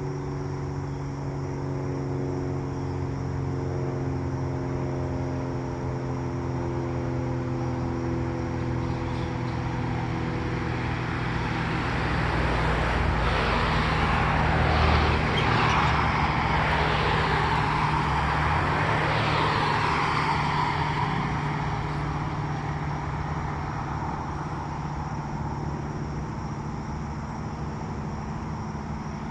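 A road vehicle passes, its noise building to a peak about halfway through and then fading away. Under it, a steady low engine hum dies out before the pass.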